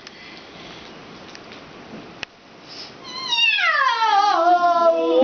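An actor's long imitation of a cat's meow, starting about three seconds in: the pitch glides steeply down, then holds low and drawn out. A single sharp click comes shortly before it.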